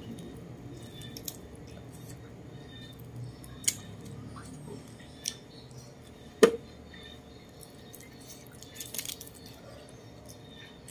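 Close-up eating sounds of roast chicken pulled apart by hand and chewed: scattered soft clicks and moist smacks, with one sharp click, the loudest sound, a little past halfway and a short cluster of small clicks near the end.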